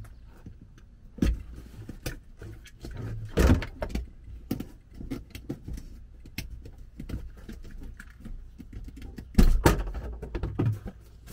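Black plastic RV battery box lid and its corrugated vent hose being handled and pulled free: irregular clunks, knocks and rattles, loudest about three and a half seconds in and again near the end.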